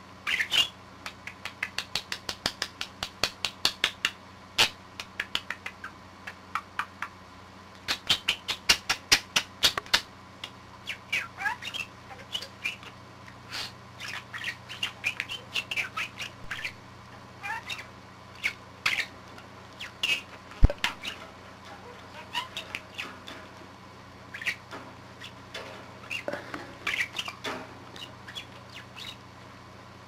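A budgerigar chattering: runs of rapid clicks mixed with short chirps and warbling squawks, over a steady low hum from the recording.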